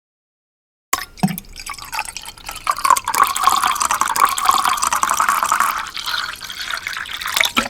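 Water running or being poured, a splashing, trickling flow with many small drips. It starts abruptly about a second in and stops abruptly near the end.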